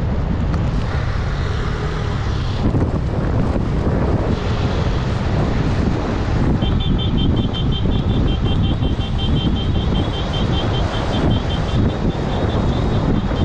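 Wind rumbling on the microphone, with a vehicle running along. About halfway in, a rapid, evenly pulsed high chirping tone starts and keeps going.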